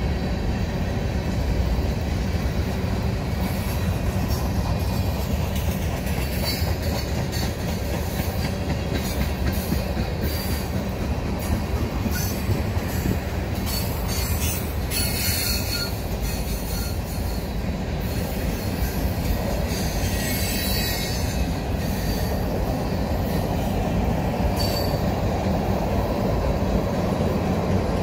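Freight cars of a Union Pacific manifest train rolling past: a steady rumble and clatter of steel wheels on rail, with bursts of high-pitched wheel squeal now and then through the middle.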